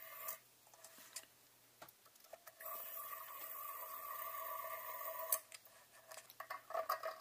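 Water being squirted from a syringe into the brass boiler of a small model steam engine: a steady hiss lasting about two and a half seconds, starting about three seconds in and ending with a click, with a few light clicks of handling before it and a quick run of clicks near the end.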